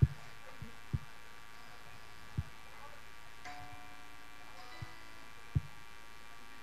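Stage PA system humming steadily, with several dull low thumps as microphones are bumped and handled during setup. The loudest thumps come at the very start and about five and a half seconds in. Faint guitar notes sound near the middle.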